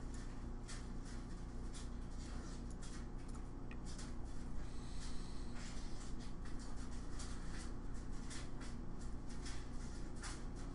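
Steady low electrical hum with frequent soft, irregular clicks and rubbing noises over it.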